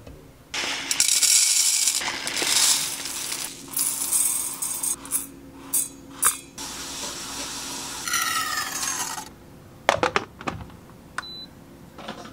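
Uncooked rice pouring and rattling into a stainless steel bowl and being stirred by hand: a sudden rushing hiss, then scattered clicks and rattles. Later, water runs into the bowl with a rising tone, followed by a few sharp knocks.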